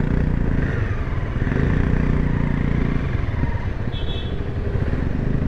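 Motor vehicle engine and road noise heard from on board while moving, a steady low rumble. A brief high-pitched tone sounds about four seconds in.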